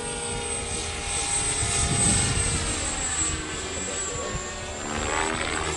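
Electric motor and propeller of a small foam RC parkjet in flight: a steady high whine whose tone sweeps down and then rises again near the end as the plane moves across the sky.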